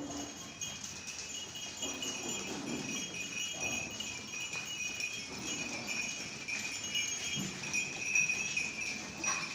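Goat farm ambience: a steady high-pitched ringing runs throughout, with scattered faint animal sounds and a few soft knocks.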